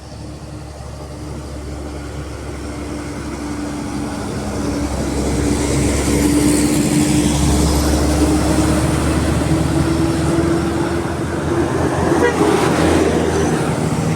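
A heavy bus engine pulling up a hill toward the microphone, its note rising slowly as it labours and grows louder, with a rush of noise about twelve seconds in as it passes close by.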